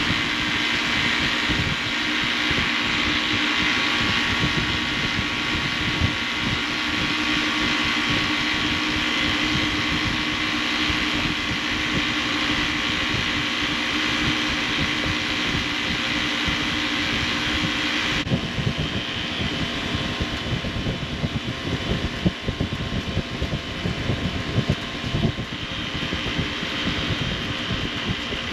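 Refrigeration condensing unit running, its compressor and condenser fan giving a steady hum and fan hiss. The unit shuts off abruptly about 18 seconds in, plausibly at the end of a pump-down on the low-pressure cutout. An uneven low rumble remains afterwards.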